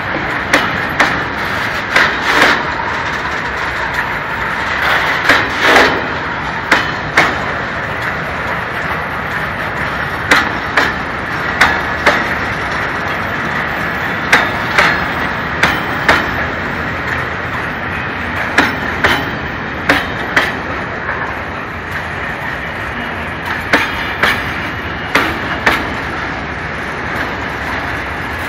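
Freight train of tank wagons rolling past close by: a steady rumble of wheels on rail, with sharp clacks in quick pairs as each wagon's wheelsets cross the rail joints, repeating about every two seconds.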